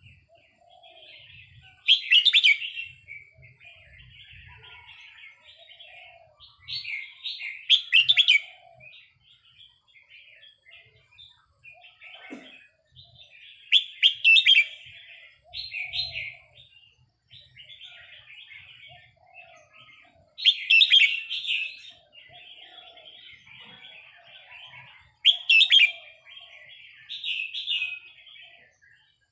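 Red-whiskered bulbul singing: a loud, short, bubbly phrase every few seconds, with softer twittering in between.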